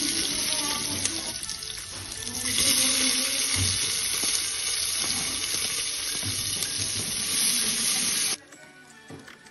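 Hot oil sizzling in an aluminium pressure cooker as chopped garlic and green chilli fry and sliced onions are tipped in, with light scraping and tapping of a spatula. The sizzle gets louder about two and a half seconds in, as the onions go in, and cuts off suddenly near the end.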